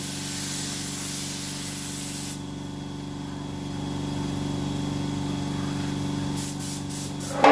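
Gravity-feed paint spray gun hissing as it sprays white paint onto a motorcycle fuel tank, stopping about two and a half seconds in, while an air compressor runs steadily underneath. A few light clicks near the end.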